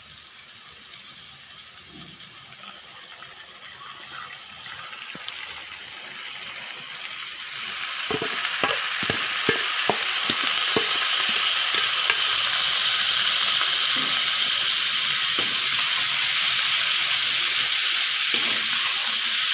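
Hot oil sizzling in a pan of onion-tomato masala as chopped cluster beans are added and stirred in with a spatula. The sizzle starts faint and grows steadily louder over the first ten seconds, then holds steady, with a quick run of knocks about eight to eleven seconds in.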